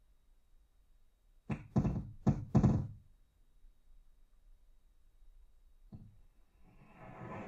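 Contemporary music for string trio and electronics: four sharp knocking strikes, each with a short ring after it, come in quick succession about a second and a half in. From about six seconds a quieter, noisy sustained sound enters and grows.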